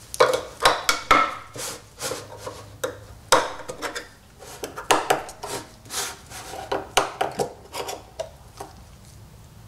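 Lids being pried off small metal cans with a small hand tool: irregular metal-on-metal clicks, scrapes and knocks, with the cans bumping on the workbench.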